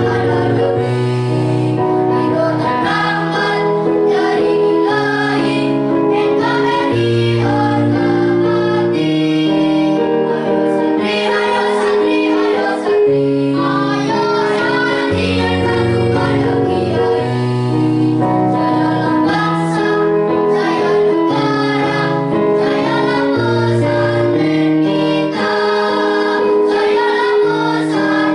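Children's choir singing in harmony over instrumental accompaniment with a steady low bass line.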